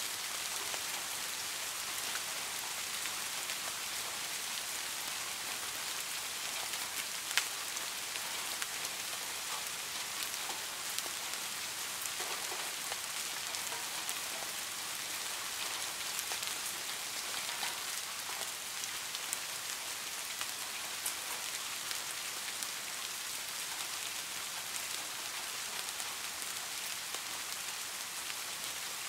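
Steady rain falling, an even high hiss with now and then a single louder drop ticking out of it, the clearest about seven seconds in.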